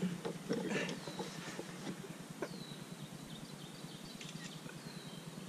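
Quiet outdoor ambience with a low steady hum, a couple of faint high bird calls falling in pitch, and a few scattered light clicks and knocks.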